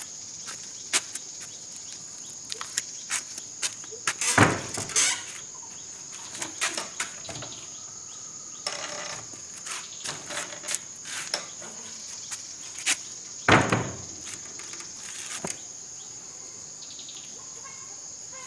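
Insects chirring in a steady high-pitched drone, over scattered knocks, clatter and footsteps of someone handling things at a doorway, with two louder thumps, about four seconds in and about thirteen seconds in.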